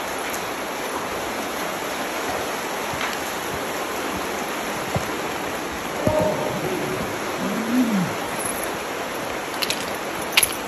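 Creek water rushing steadily over a rocky bed. A short pitched sound rises and falls about six to eight seconds in, and a few sharp clicks come near the end.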